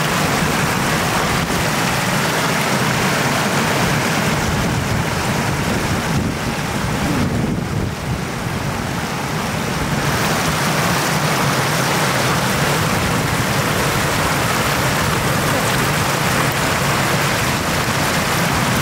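Floodwater rushing across a paved road in a steady, loud wash, easing slightly about eight seconds in.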